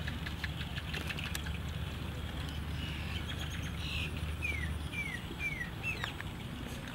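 A bird calling outdoors: four short notes, each sliding downward, in quick succession about two thirds of the way in, over a steady low background rumble that stops just before them.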